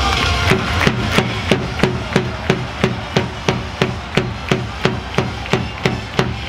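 Claps in unison in a steady beat, about three a second, with no music under them: a stadium cheer rhythm.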